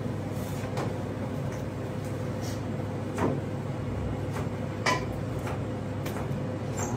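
A few light knocks and clicks of metal skewers against each other and the plastic cutting board as raw tuna slices are handled, over a steady background hum.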